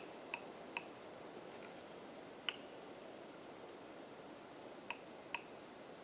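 A tree giving short, sharp creaking clicks, about six of them at irregular intervals, the loudest about two and a half seconds in. This is the sound of the forest 'talking'. Under the clicks is a faint steady hiss.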